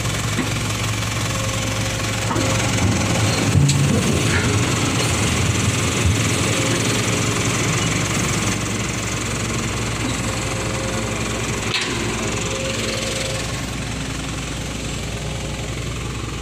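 Diesel engines running steadily: a Hitachi tracked excavator at work and an Isuzu Elf truck idling, with a couple of sharp knocks.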